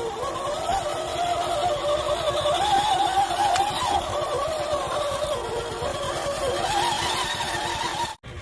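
Drivetrain of a 1/10-scale RC crawler whining, its pitch rising and falling as the throttle is worked. The sound cuts out abruptly near the end.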